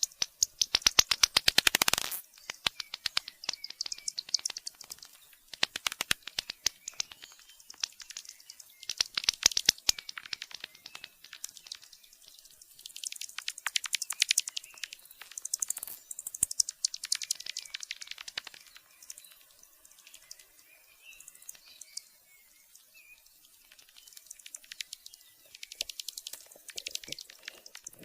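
Bats calling: rapid trains of sharp clicks and high squeaky chirps in bursts of a second or two, with short pauses between and a longer lull in the second half.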